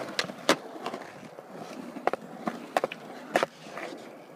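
Skateboard wheels rolling on concrete, with several sharp clacks of the board scattered through, the loudest about half a second in and between two and three and a half seconds in.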